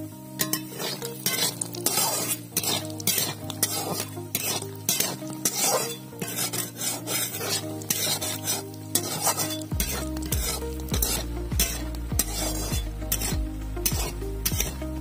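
Metal spatula stirring and scraping pieces of food frying in a little oil in a metal wok: many quick scrapes against the pan with a light sizzle. Background music plays underneath.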